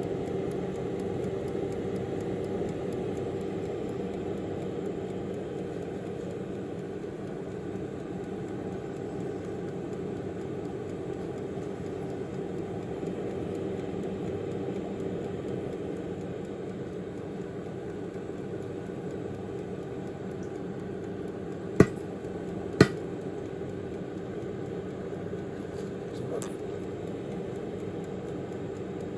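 Tower 4.3 litre air fryer running, a steady whirring hum from its fan. A little over twenty seconds in come two sharp clicks about a second apart.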